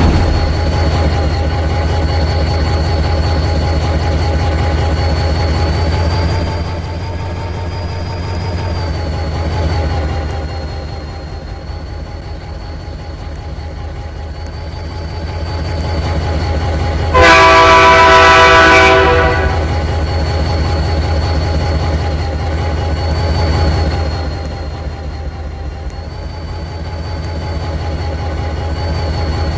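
Diesel locomotives running steadily with a low rumble and a faint steady whine as the train moves along the track. A bit past halfway the locomotive's air horn sounds one blast of several notes at once, about two seconds long, the loudest sound here.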